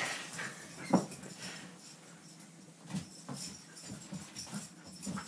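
Pet dog sounds during an excited game of fetch: a short sharp sound about a second in, then a string of short, irregular sounds over the last two seconds.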